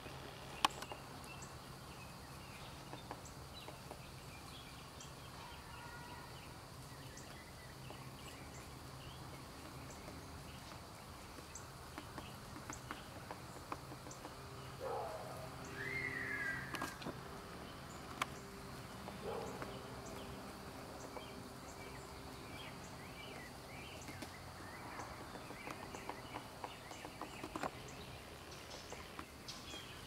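Outdoor ambience with short, faint bird calls scattered through it. The clearest call, about halfway through, bends down in pitch. Faint scattered ticks and a steady low hum run underneath.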